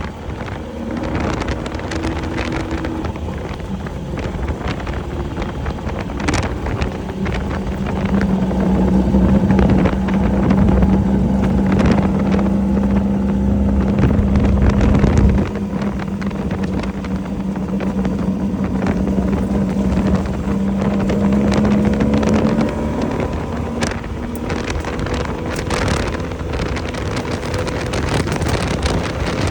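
Off-road race vehicle driving at speed: its engine holds a steady note for long stretches, easing briefly about halfway, with wind noise buffeting the microphone and frequent rattles and knocks from the vehicle.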